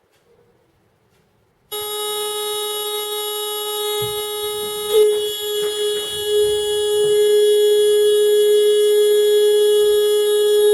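Motorcycle horn blaring one steady, unbroken tone that starts suddenly about two seconds in and keeps sounding, with a few low knocks partway through.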